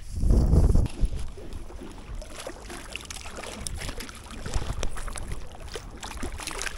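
Lake water sloshing and lapping, with a loud low rumble in the first second and scattered small clicks.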